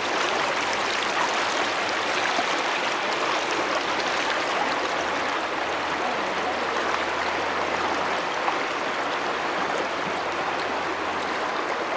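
Shallow river rushing steadily over stones and boulders.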